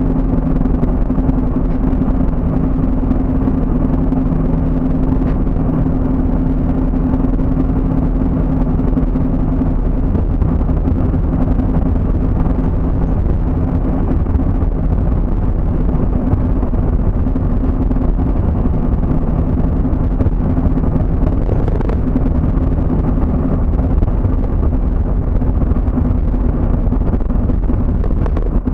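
Steady engine and road noise of a moving vehicle heard from inside the cabin, with a low steady hum that fades out near the end.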